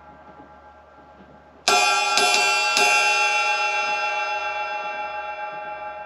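Paiste Formula 602 16-inch flat ride cymbal: the fading ring of an earlier stroke, then three quick strikes about a second and a half in, after which the cymbal rings on with many steady overtones and slowly fades.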